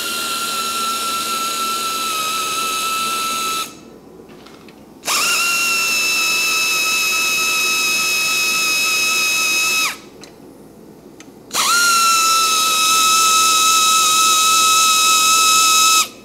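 Power drill running in three long runs of about four to five seconds each, spinning up quickly to a steady high whine; it stops about three and a half seconds in, starts again about five seconds in, stops near ten seconds, and runs again from about eleven and a half seconds until near the end.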